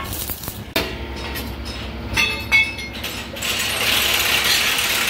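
Steel excavator track-chain parts knocking and clinking: one sharp knock under a second in, then two ringing metal clinks around two seconds in. A steady hiss sets in about three and a half seconds in.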